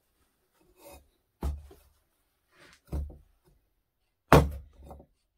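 A metal ingot mold, turned upside down, is knocked three times against a firebrick block to release a freshly cast ingot. The knocks are heavy thuds about a second and a half apart, the last one the loudest, with a few lighter taps between them.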